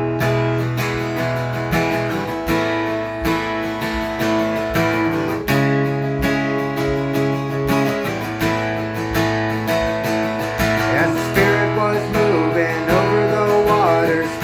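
Instrumental opening of a worship song in the key of E: acoustic guitar strummed in a steady rhythm over sustained chords. A wavering higher melody line comes in about ten seconds in.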